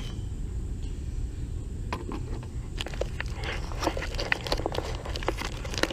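Clicks and plastic rattling from about two seconds in as a relay is worked out of its socket in the fuse box, over a low background rumble.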